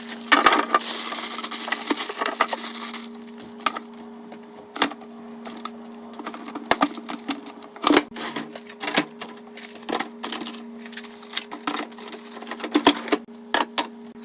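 Irregular clicks and knocks of containers and lids being handled and set down, over a steady low hum, with a stretch of rustling noise in the first few seconds.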